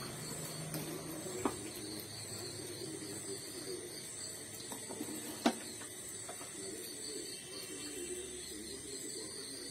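A few short sharp clinks of small drinking glasses being handled and set down on a stone floor, the loudest about five and a half seconds in, over a steady low background hum.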